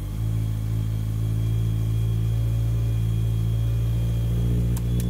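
Toyota Starlet's turbocharged 4E-FTE four-cylinder engine idling steadily. Two sharp clicks come close together near the end.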